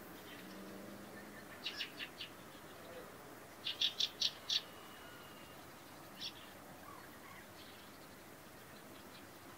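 Fieldfare calling in quick chattering notes: a run of four, a louder run of six about two seconds later, then a single note.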